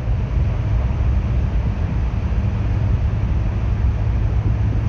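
A bus on the move: a steady low engine drone with road noise.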